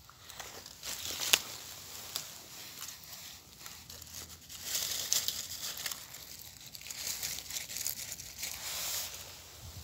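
Dry fallen leaves and pine needles rustling and crackling as they are pushed aside by hand, with a single sharp crack about a second in.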